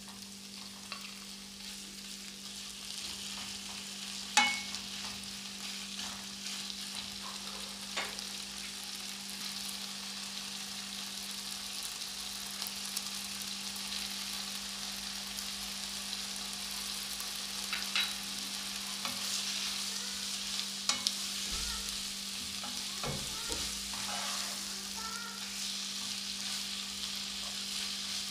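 Chicken breast pieces and sliced red onions sizzling in a non-stick frying pan, the sizzle growing steadily louder as the raw chicken heats. A few sharp knocks against the pan, the loudest about four seconds in, and a spatula stirring near the end.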